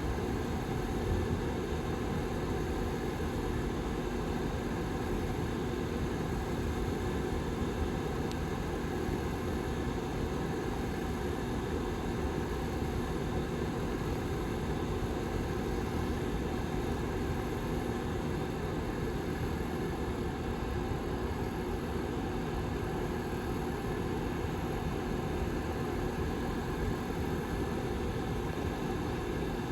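Rear fan of a Lasko 755320 ceramic tower heater running steadily: an even whooshing air noise with a constant low hum.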